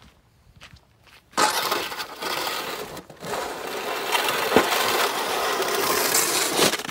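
Snow shovel blade scraping along icy pavement as it pushes snow, starting about a second and a half in, with a short break near three seconds and a sharp click partway through.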